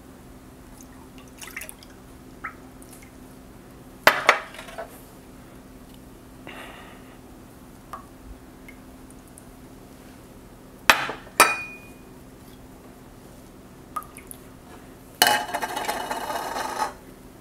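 Milk and then melted butter poured into a glass bowl, with sharp glass clinks about four seconds in and twice close together near the middle as the glass jugs touch the bowl or are set down. A louder, rougher noise lasts about two seconds near the end.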